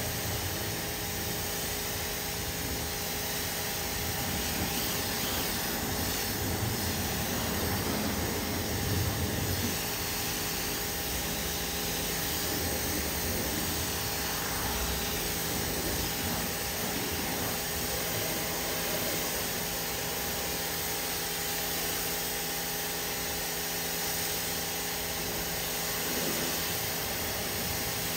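Pressure-washer wand spraying a steady fan of water onto a pickup's paint in a final rinse, over a steady machine hum.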